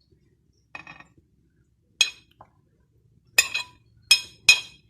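A spoon clinking against a mixer-grinder jar five times with short ringing knocks, the last three louder: grated coconut being spooned into the jar for grinding.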